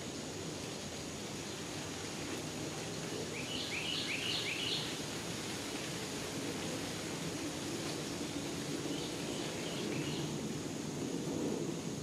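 A songbird calling in two short runs of quick rising notes, four or five in a row about three seconds in and a fainter run about nine seconds in, over a steady low outdoor rumble and hiss.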